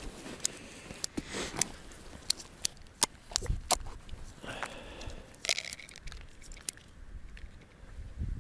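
Close handling sounds of an ice angler at his hole: rustling of a waterproof suit, many small clicks and crunches of tackle and crusty ice, and two low thumps as he shifts his weight on the ice.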